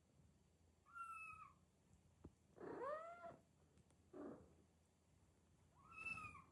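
Newborn kittens mewing: three short, high-pitched mews, about a second in, around three seconds in and near the end, with a softer breathy squeak between them.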